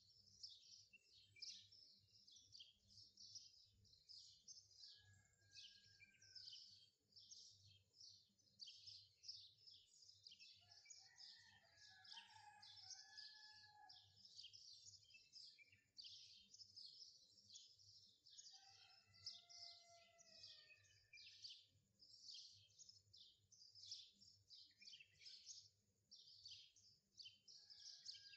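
Faint birdsong: many rapid high chirps throughout, with a few lower whistled notes now and then.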